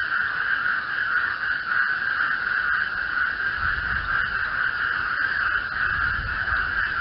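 Chorus of many frogs calling at once, merging into a steady, dense din. A low rumble joins in about halfway through.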